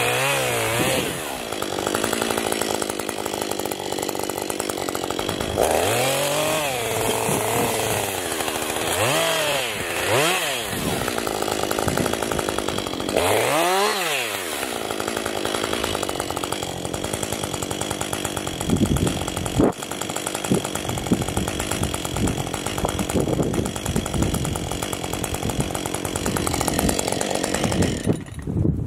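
Husqvarna 550 XP two-stroke chainsaw revving up and down again and again as it cuts branches off a felled fir, with the biggest rev about halfway through. In the second half it runs with an uneven, choppy sound, then stops near the end.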